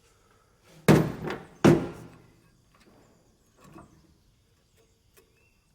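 Two heavy metal clunks a little under a second apart, from pump parts being knocked or set down, then a fainter knock a couple of seconds later.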